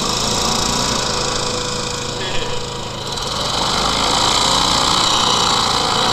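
Hovercraft engine and propeller running steadily at low speed, a loud continuous drone with a steady whine; it grows somewhat louder a little past halfway, with one brief knock near the middle.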